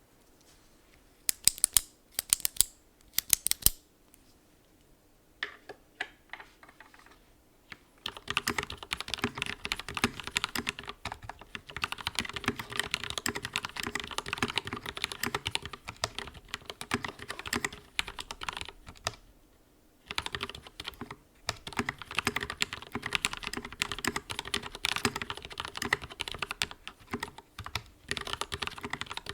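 Typing on a YUNZII KC84 hot-swappable mechanical keyboard with modded stabilizers and lubed switches. It opens with a few separate, sharp key presses, then goes into steady fast typing from about eight seconds in, with one short pause near the middle.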